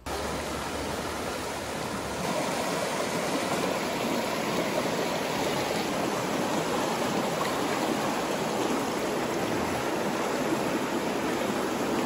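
Shallow rocky river running over small rapids: a steady rush of water.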